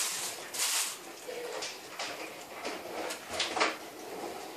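Metal pry tool scraping and clicking against the edge of a tablet's cracked touchscreen glass and frame, working the glass loose from its heat-softened adhesive. A series of short scrapes and clicks, the loudest pair about three and a half seconds in.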